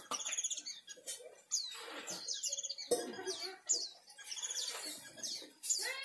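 Mugimaki flycatcher singing: short, high-pitched chirping phrases repeated about once a second.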